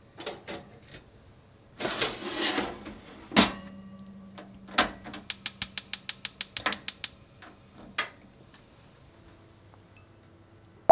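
Rinnai gas stove fish grill being used: the rack rattles and the grill drawer shuts with a knock, then the knob is turned and the gas igniter clicks rapidly, about eight ticks a second for nearly two seconds, as the burner lights.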